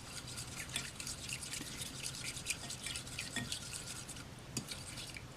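Clear glue and water being stirred together in a container, a run of small irregular clicks and scrapes from the stirring utensil.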